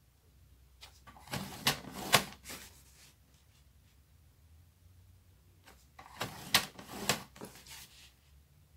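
Sliding paper trimmer's blade carriage run along its track twice, about a second in and again about six seconds in, each a short scraping pass with sharp clicks, as fold lines are scored into cardstock.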